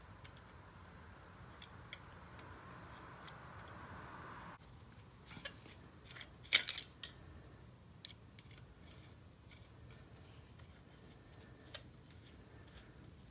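Small metallic clicks and clinks of a screwdriver, screw and metal clip against the Dyna III electronic ignition plate as it is screwed down. There is a short cluster of sharp clicks about six and a half seconds in and a few single ticks scattered around it.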